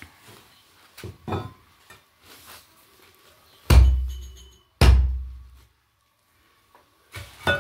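Meat being handled and cut on a wooden board: a few light knocks, then two heavy thuds about a second apart, each with a low boom that dies away.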